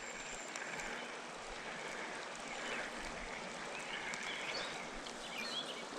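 River water flowing steadily, with a few faint bird chirps in the middle.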